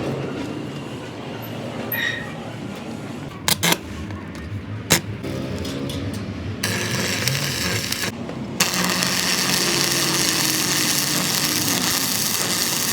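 Workshop tool noise on a truck axle job: a few sharp knocks, then a loud steady hiss that starts past the middle, breaks off briefly and carries on.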